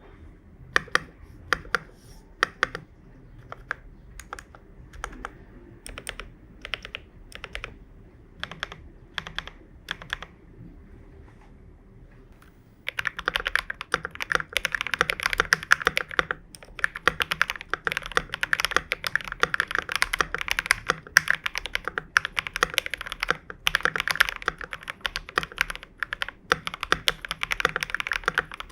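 FLEsport FL980 mechanical keyboard with a steel plate, lubed and filmed KTT Strawberry linear switches and PBT keycaps: keys pressed one at a time, about one or two a second, for the first twelve seconds or so, then fast continuous typing.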